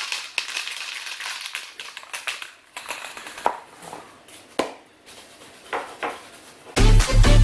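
Aerosol can of weld-through primer spraying: a hiss for the first few seconds, then shorter sprays mixed with a few sharp clicks. A music track with a heavy beat comes in near the end.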